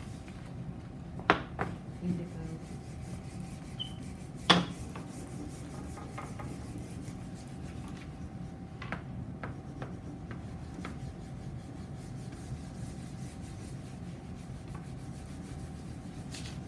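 A peeled crayon laid on its side and rubbed back and forth across paper held against a whiteboard: a steady rubbing. A couple of clicks come about a second in, and a sharper knock about four and a half seconds in.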